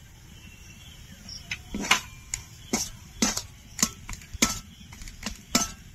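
Spatula knocking and scraping against a kadai while stirring the potato and minced chicken cutlet filling. The strikes come roughly twice a second, starting after about a second and a half, some with a short metallic ring.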